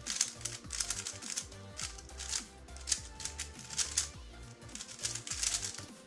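A MoYu Weilong WR M 3x3 speedcube being turned fast during a solve: quick runs of light plastic clicks with short pauses between them. Background music with a steady beat underneath.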